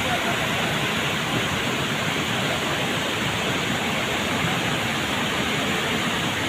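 Waterfall pouring: a steady, dense rush of falling water that does not change.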